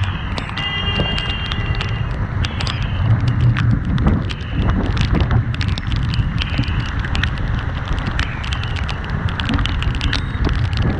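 Heavy wind buffeting a motorcycle vlogger's microphone: a deep, uneven rumble with frequent sharp crackles.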